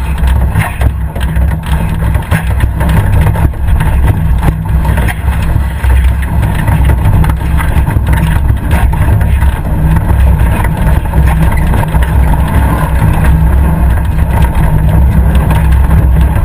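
Competition safari 4x4's engine running hard and loud, heard from inside the cabin, with frequent knocks and rattles from the vehicle jolting over rough ground.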